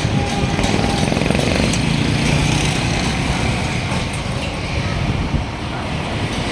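City street traffic: vehicle engines and tyre noise running steadily, with one engine standing out briefly about two seconds in.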